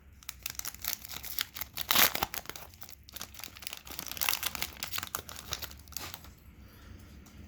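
Hockey card pack wrapper being torn open and crinkled, with irregular rustles and sharp crackles, the loudest about two seconds in, dying down near the end.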